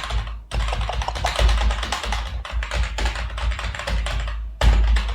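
Beatboxer's mouth imitation of computer keyboard typing: rapid, irregular clicks, with a brief pause about half a second in and another near the end.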